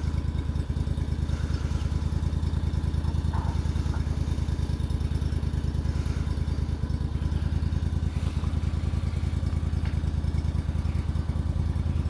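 Small engine idling steadily, with an even, fast beat of firing pulses.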